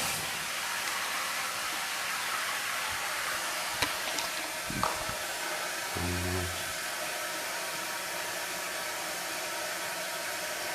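Toilet tank filling through its fill valve: a steady rush of water hissing into the tank, starting suddenly and holding an even level, with a few faint clicks.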